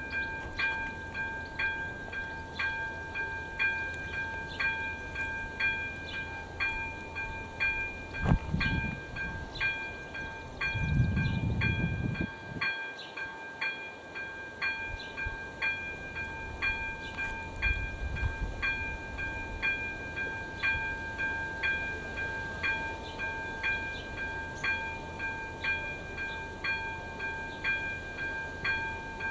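AŽD 97 level-crossing warning post with its ZV02 electronic bell ringing in an even, steady rhythm of somewhat under two strokes a second, the warning that a train is approaching. A low rumble swells and fades about eight to twelve seconds in.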